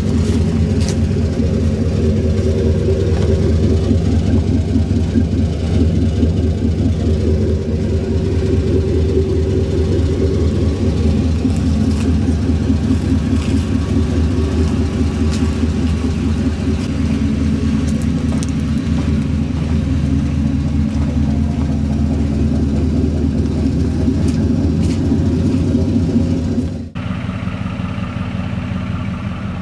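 A 2005 Chevy Silverado 2500HD's 6.0L V8 idles warm with a steady exhaust note, through Flowmaster Super 44 mufflers on 3-inch H-piped true duals. Near the end it switches to a 2004 Ford F150's 5.4L V8 idling more quietly through Magnaflow mufflers on 2.5-inch X-piped true duals.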